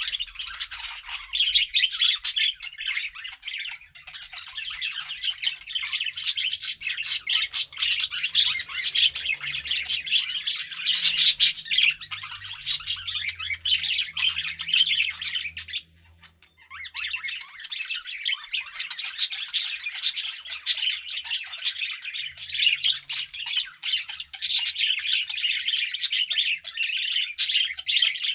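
Budgerigars chirping and warbling continuously in a dense, rapid chatter, with brief harsher squawks, broken by a short pause about halfway through.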